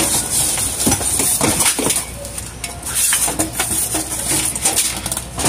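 Plastic wrapping rustling and crinkling, with irregular knocks and scrapes, as a heavy welding machine and its cables are lifted out of a cardboard box and the foam packing is pulled free. A steady high hiss runs underneath.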